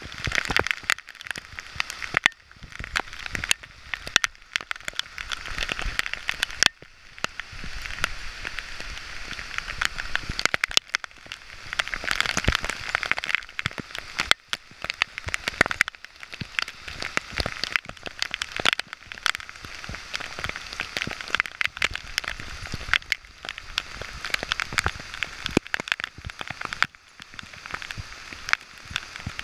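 Steady rain falling in the forest, with frequent sharp taps of drops hitting the camera close up.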